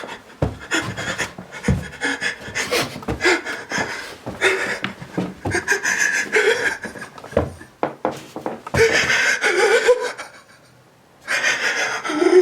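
A man panting and gasping in panic, with whimpering, strained cries and scattered thumps of footsteps on stairs; the sounds stop for about a second near the end, then the panicked breathing and cries resume.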